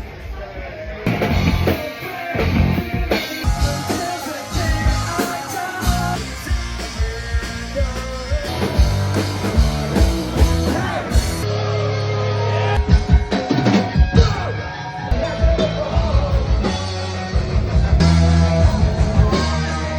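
Rock music with a drum kit, guitar and singing, in short clips cut together about three and a half and eleven and a half seconds in.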